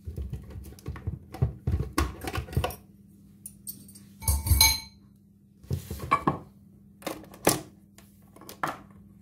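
Steel beaters of an electric hand mixer clinking and knocking against a glass bowl and the countertop as the mixer is lifted from the beaten eggs and the beaters are taken off. There is a quick run of knocks at first, and the loudest metallic clatter, ringing briefly, comes about four and a half seconds in. A few single knocks follow.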